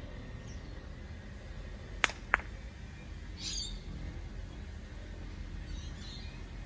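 Two sharp clacks about a third of a second apart: a gateball stick striking a hard plastic gateball, then that ball knocking into another ball.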